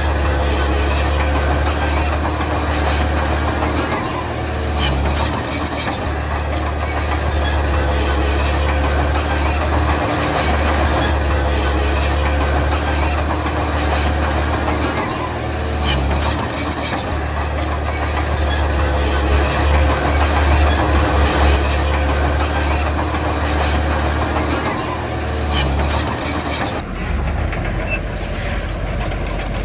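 Heavy diesel earthmoving machinery running steadily under load, with a deep engine drone; about 27 seconds in the engine note drops lower, as when the engine eases off toward idle.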